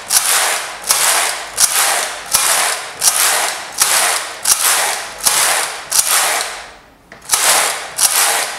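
Passap double-bed knitting machine carriage pushed back and forth across the needle beds, knitting rows of 1x1 rib. Each pass is a sharp click followed by a rattling swish that fades, about one pass every three-quarters of a second, with a brief pause about seven seconds in.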